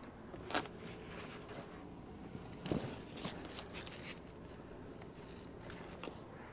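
Heavy fabric grill cover and its strap rustling and scraping as the strap is pulled tight, in a few brief scratchy bursts.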